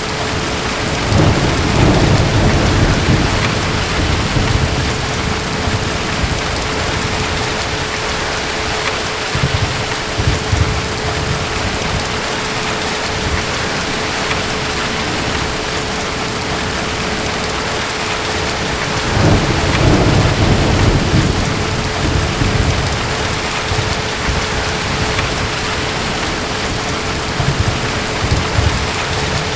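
Steady heavy rain with low rolls of distant thunder. The biggest rumbles come about a second in and again around twenty seconds in, with weaker ones between.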